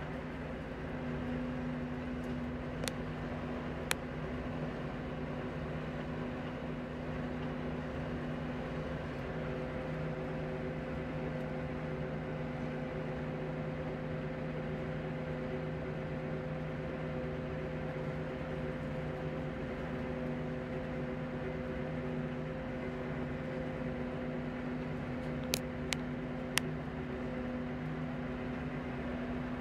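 Steady drone of farm machinery engines, a constant hum holding several steady tones, during forage chopping. A few sharp clicks sound about three and four seconds in, and three more near the end.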